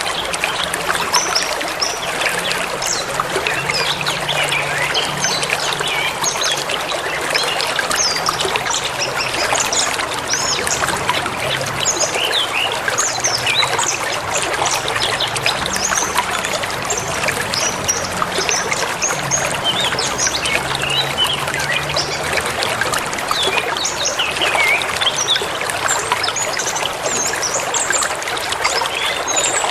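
Forest river running steadily, a constant rushing and trickling of water, with many small birds chirping and calling over it throughout.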